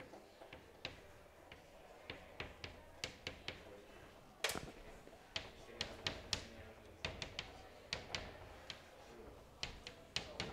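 Chalk tapping against a chalkboard while writing: a string of faint, sharp clicks at uneven spacing, coming in clusters, with one louder click about four and a half seconds in.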